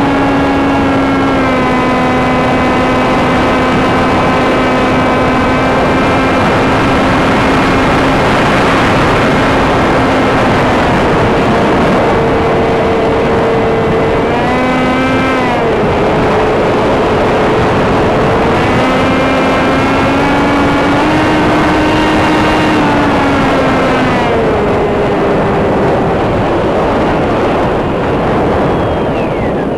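Electric motor and propeller of a Sky Surfer RC glider running in flight. Its whine steps up and down in pitch several times as the throttle changes, over heavy wind noise rushing across the on-board microphone.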